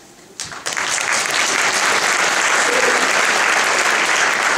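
Audience clapping, starting suddenly about half a second in and building to steady, sustained applause.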